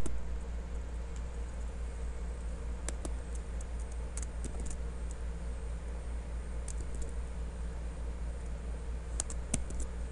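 Steady low electrical hum on the microphone, with scattered sharp clicks in small clusters of computer input: mouse clicks and keystrokes while working in a browser.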